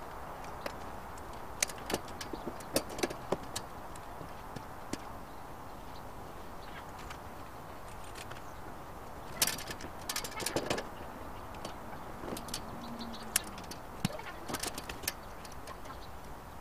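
Clips snapping onto a wire-mesh dog guard as it is assembled, with the metal wire frame knocking and rattling. The sounds come as scattered clicks and clatters in three or four short clusters.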